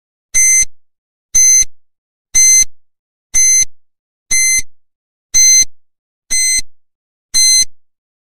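Countdown timer sound effect: eight short high beeps, one a second, evenly spaced, counting down the seconds left to answer.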